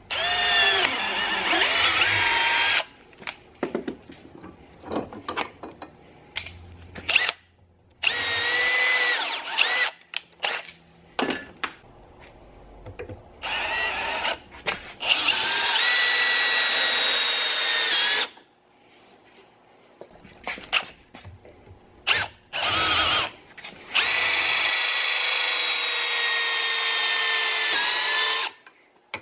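Cordless drill running in several bursts of a few seconds each, boring into a 3D-printed plastic longboard truck hanger held in a vise. Its pitch shifts within each burst, and short clicks and knocks come between the bursts.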